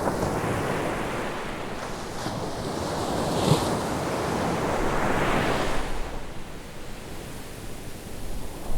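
Ocean waves breaking and washing up a beach, two swells of surf in the middle and a quieter lull near the end, with some wind noise on the microphone.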